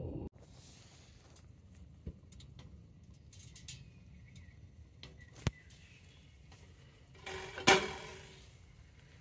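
Metal camping cookware handled: scattered light clicks and taps, then a louder metallic clatter with a short ring about seven and a half seconds in.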